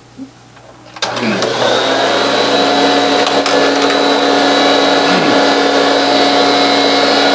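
Vacuum cleaner switched on about a second in, its motor running steadily with a high whine.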